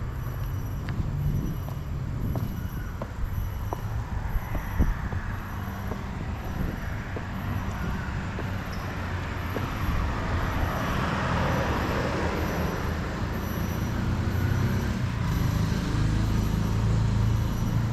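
Outdoor road-traffic noise: a steady low rumble with a vehicle passing, its sound swelling and easing around the middle. A few light clicks in the first five seconds.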